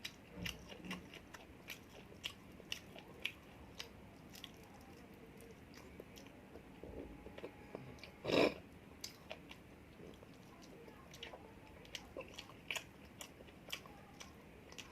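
A person chewing and biting food close to the microphone: many small mouth clicks scattered throughout, with one louder noise about eight and a half seconds in.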